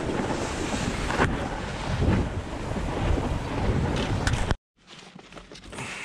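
Wind buffeting a GoPro's microphone together with the steady hiss of sliding fast over groomed snow. It cuts off suddenly about four and a half seconds in, giving way to quieter rustling with a few small clicks.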